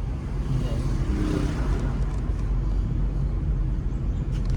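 Steady low rumble of a moving vehicle's engine and road noise, with a brief rush of noise about a second in.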